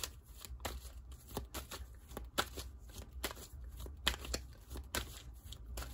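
A deck of oracle cards being shuffled by hand, heard as irregular short clicks and card slaps.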